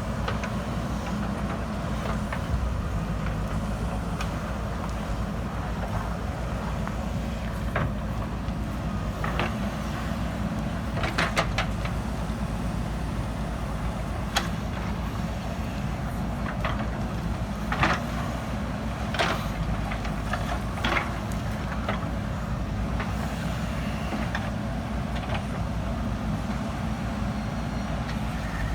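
JCB 3DX backhoe loader's diesel engine running steadily, with scattered sharp knocks from the machine at work.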